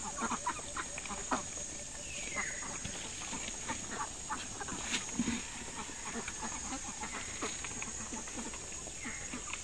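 A flock of domestic ducks feeding: many scattered soft clicks of pecking and shuffling, with low calls and a short falling call about two seconds in and again near the end.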